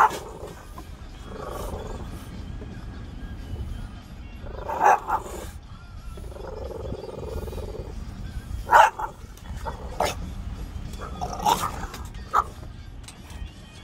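French bulldog barking in play, about six short sharp barks spread out, with longer growls in between as it is teased by a hand waved at it.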